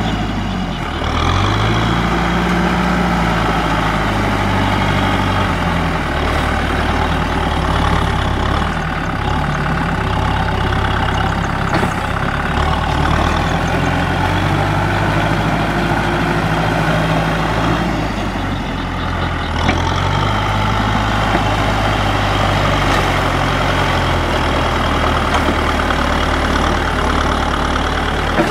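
Tractor engine running hard, its speed rising and falling.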